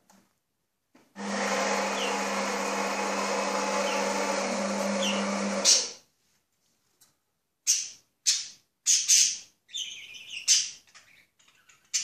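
Coffee machine running with a steady hum for about four and a half seconds, then cutting off suddenly. A couple of seconds later, pet parrots give several short, high chirps.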